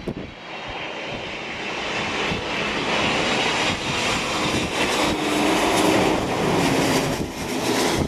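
Twin-engine widebody jet freighter passing low overhead on final approach with gear down: jet engine whine and rumble growing louder to a peak near the end, then falling away quickly.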